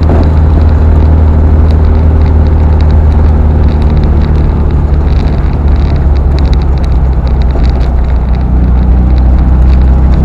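A VW Thing (Type 181) driving at steady road speed: a loud, even low drone of its air-cooled flat-four engine mixed with wind and road noise.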